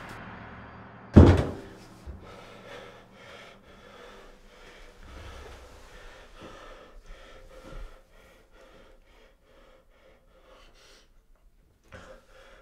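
A door slammed shut about a second in, then several seconds of rapid, panicked gasping breaths that die away.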